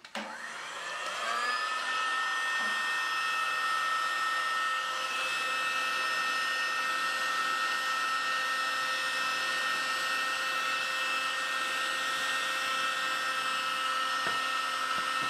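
Heat gun blowing hot air to melt crayons in paper cups: its fan motor whines up to speed about a second in, then runs steadily with a level whine over the rush of air.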